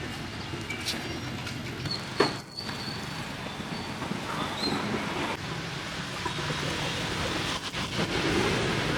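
Street background noise with passing traffic, a sharp knock a little over two seconds in, and the traffic growing a little louder near the end.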